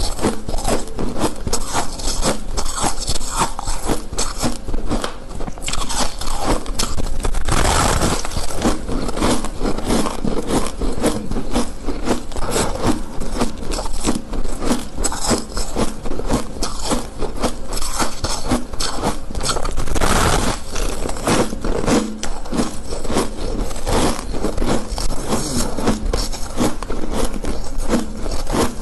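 Biting and chewing into a large chunk of soft, frosty ice: a dense, continuous run of crisp crunches and crackles, with louder bites about 8 seconds in and again near 20 seconds.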